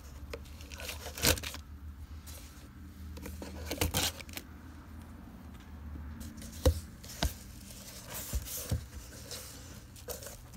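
Packing tape being ripped off a cardboard shipping box and the flaps pulled open, with cardboard scraping and a few sharp knocks, the loudest a little past the middle.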